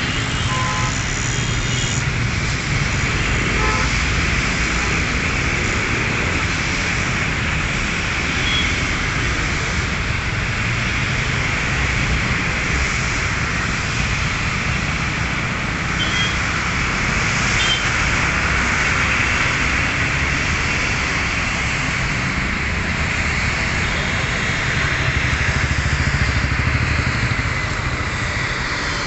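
Steady road traffic noise with a few short horn toots, mixed with the engines of a jet airliner on final approach.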